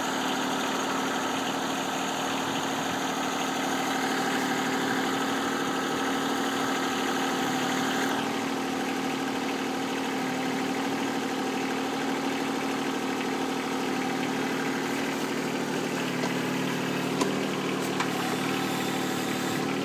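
Backhoe engine running steadily at a low idle-like speed, with two short sharp clicks near the end.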